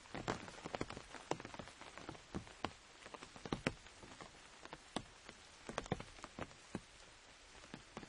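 Rain falling on an umbrella: a steady patter with many irregular, sharper drops tapping on the taut canopy.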